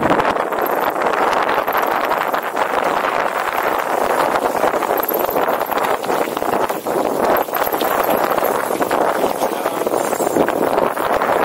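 Wind rushing over the microphone on a fast mountain-bike descent, with constant rattling and knocking from the bike over a rough track.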